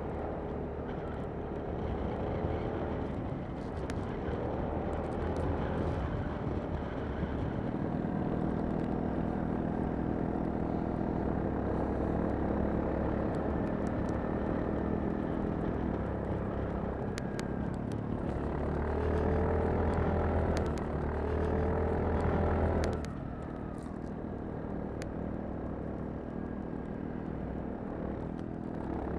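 Piaggio motor scooter engine running under way, with a steady drone throughout. About two-thirds of the way in it grows louder for a few seconds, then drops off suddenly.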